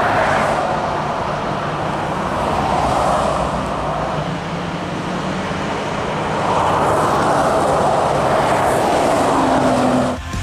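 Highway traffic passing, several vehicles in turn swelling and fading as they go by, with tyre and engine noise.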